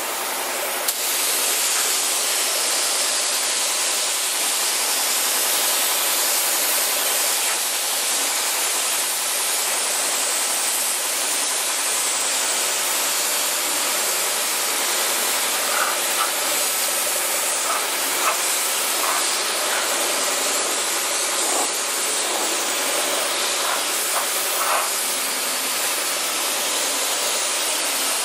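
Gravity-feed compressed-air spray gun hissing steadily as it sprays primer onto a car's trunk lid.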